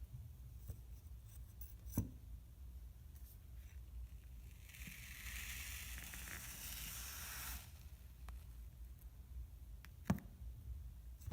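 Kinetic sand being cut and scraped with a tool: a soft gritty hiss for about three seconds in the middle, and two sharp taps, one about two seconds in and one near the end.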